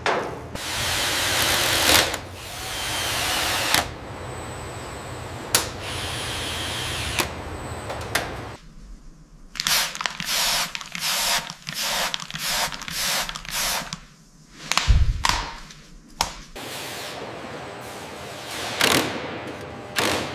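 An angle grinder cuts steel with a loud hissing rush for the first few seconds. A run of short sharp spritzes from a trigger spray bottle follows, two or three a second, with one low thud partway through. Near the end comes quick, rapid clicking from hand power tools.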